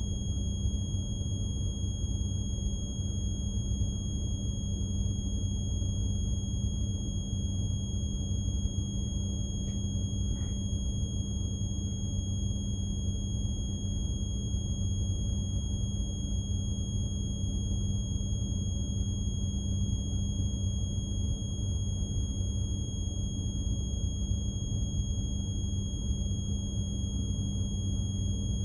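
Steady low drone of a container ship's machinery, with a constant high-pitched whine above it.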